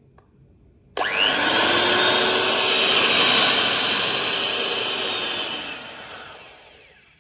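Nikai electric hand mixer run at speed 6 with its beaters spinning in open air: it starts suddenly about a second in with a quick rise in pitch, runs with a steady high motor whine, then is switched off and winds down over the last two seconds.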